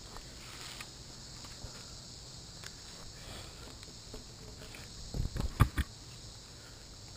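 Footsteps on leaf litter and twigs, with a short cluster of heavy thumps and crackles about five seconds in, over a steady high insect drone.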